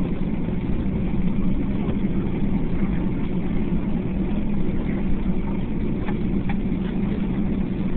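Steady low hum of a Boeing 757's jet engines at idle, heard from inside the passenger cabin, with no spool-up for the takeoff roll yet.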